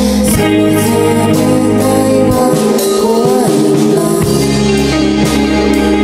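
Recorded band music: guitar and bass over a steady beat of drum hits.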